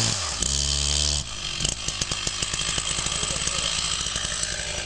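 Two-stroke chainsaw revving up to full throttle with its bar in the felling back cut, held there for under a second, then dropping back to a rapid idle about a second in and idling steadily.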